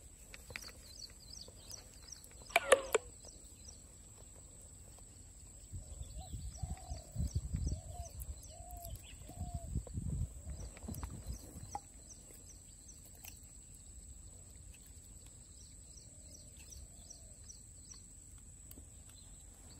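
Birds calling: repeated series of short high chirps, with one sharp, loud call about two and a half seconds in and a run of four lower rising-and-falling notes in the middle. Low irregular rumbling sits under the middle part.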